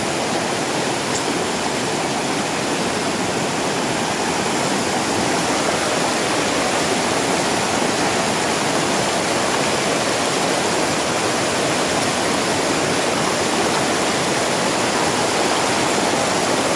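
A shallow, boulder-strewn river rushing over rocks in white-water rapids, giving a steady, even rush of water.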